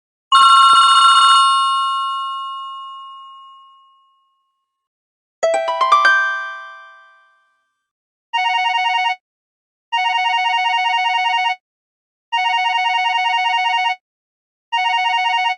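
ZTE F160 mobile phone ringtones playing one after another: a single chime that rings out, then about five seconds in a short rising run of chime notes. From about eight seconds in comes a buzzy telephone-style ring repeating in bursts about two seconds apart.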